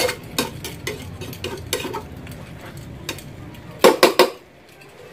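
Metal spoon stirring chopped chicken in a stainless steel frying pan, clinking and scraping against the pan at intervals of about half a second. About four seconds in come three louder clanks close together.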